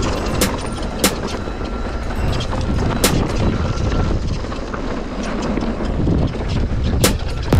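Mountain bike descending a rough downhill trail: a steady rumble of tyres and wind noise on the action camera's microphone, broken by several sharp knocks as the bike hits bumps.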